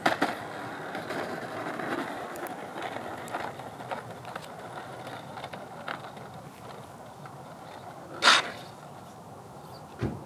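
A model jet's small wheels hit a paved runway with a sharp knock, then roll with a rumbling, clicking clatter. There is a short loud burst about eight seconds in and a thump near the end.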